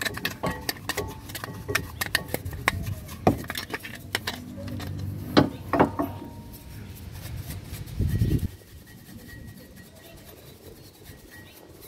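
Sandpaper scraping the pad seats of a 2013 Ford Escape's front brake caliper bracket, with irregular sharp metallic clicks and clinks. About eight seconds in there is a brief low rumble, and after it a quieter stretch of brushing dust off the bracket.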